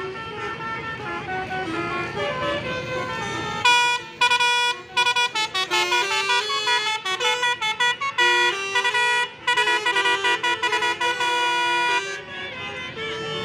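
Bus's basuri telolet horn playing a fast tune of loud, stepped multi-tone notes in quick bursts, starting about four seconds in and stopping about twelve seconds in. Before it, a fainter melody plays over the low rumble of bus engines.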